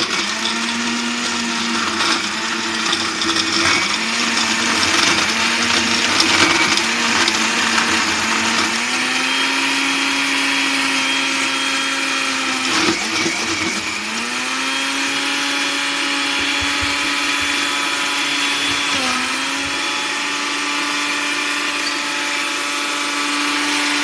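Countertop blender running, crushing ice with pop and ice cream for a smoothie. The motor note wavers at first, steps up in pitch about eight seconds in, drops off briefly about halfway before coming back up to speed, and dips once more near the end.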